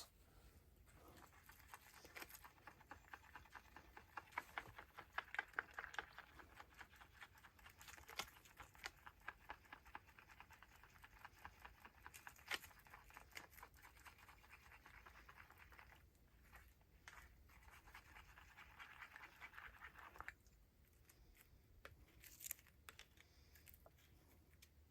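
Faint, rapid scratchy strokes of a brush spreading fibreglass resin over a drum shell, stopping about 20 seconds in, with a few scattered ticks after.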